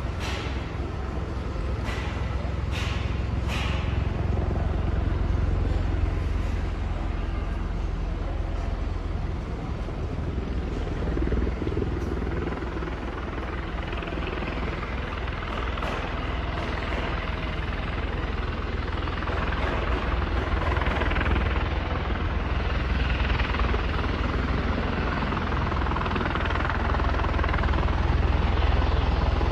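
Helicopter coming in to land: a steady low rotor throb under a rushing engine and rotor noise that grows louder over the second half. A few sharp clicks sound in the first few seconds.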